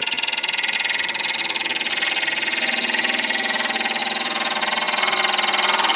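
A turning tool cutting an acrylic pen blank spinning on a midi lathe: a steady, loud rasping hiss with a fast flutter, stopping abruptly near the end.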